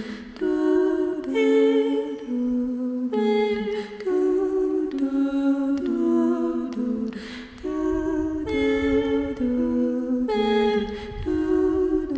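Wordless a cappella humming: a voice holds long notes that step to a new pitch about once a second, with brief pauses for breath.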